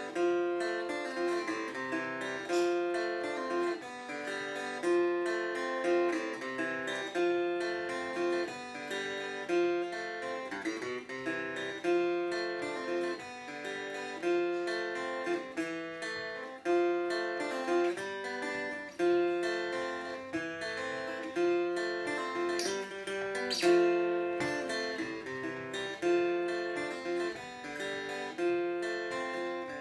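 Godin A6 Ultra acoustic-electric guitar played solo, picking a short Congolese rumba (sebene-style) phrase of single notes that repeats over and over.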